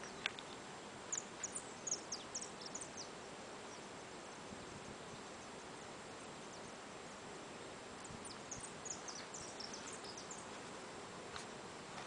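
Large honeybee swarm in flight, a steady buzzing hum. Two clusters of short high chirps come over it, one a second or two in and another about eight to ten seconds in.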